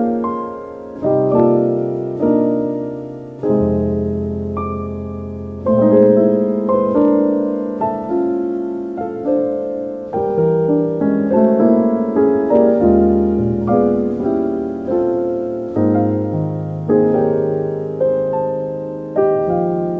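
Slow solo piano music, chords and melody notes struck every second or two and left to ring out.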